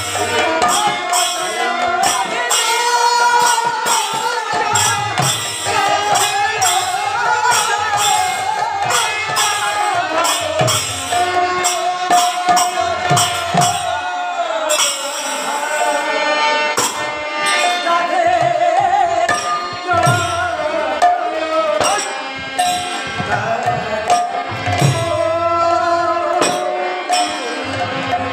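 Bengali harinam sankirtan: a lead male singer with harmonium, backed by the rapid strokes of two khol clay barrel drums and the jingling clash of hand cymbals, playing continuously.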